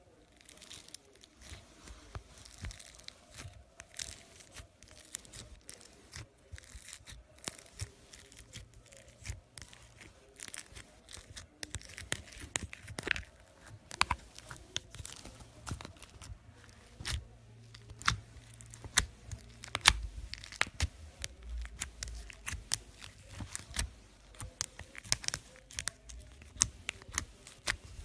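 Fingers squeezing and poking pink slime packed with foam beads: irregular crackling with small sharp pops, coming thicker and louder in the second half.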